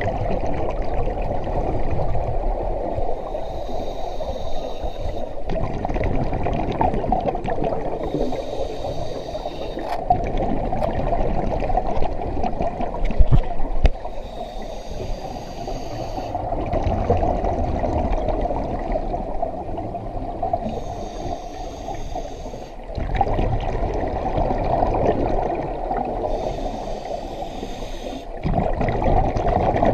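Scuba diver breathing through a regulator underwater: a breath about every five to six seconds, with bubbling and gurgling water throughout.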